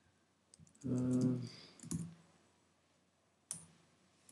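A few separate computer keyboard keystrokes and clicks, spaced out rather than continuous typing. About a second in, a man gives a short wordless hum.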